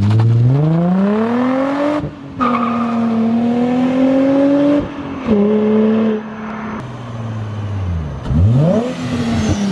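Nissan 350Z's 3.5-litre V6 with its muffler cut off, accelerating hard from a standstill: the revs climb for about two seconds, drop at a gear change, hold high, then fall away in steps. Near the end the revs rise and fall again quickly.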